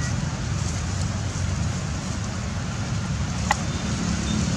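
Steady outdoor background noise, a low rumble with hiss, broken by one sharp click about three and a half seconds in.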